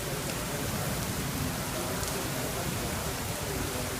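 Heavy rain falling steadily, an even hiss of rain pattering on surfaces.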